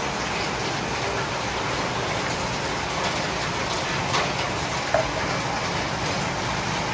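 Heavy rain falling steadily: a dense, even hiss. A couple of light knocks stand out a little past the middle.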